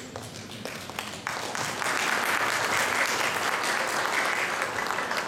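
Audience applauding, growing louder about a second in and easing off near the end.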